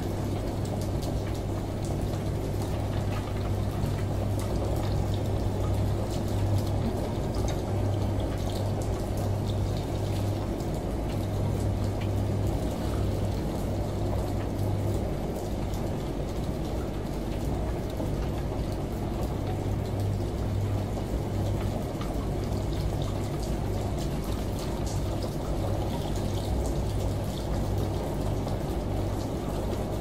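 Front-loading washing machine in its wash cycle: laundry tumbling and water sloshing in the drum over a steady low motor hum, which eases off for a few seconds around the middle and then comes back.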